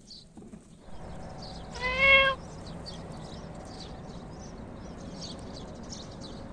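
A cat meowing once, a single short call about two seconds in, over faint high-pitched chirping that runs throughout.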